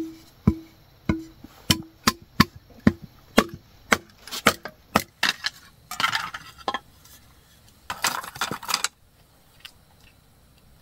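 Repeated chopping strikes of a blade on wood, about two a second, the first several each leaving a short low ring. Two stretches of rustling come in the second half, and the strikes stop near the end.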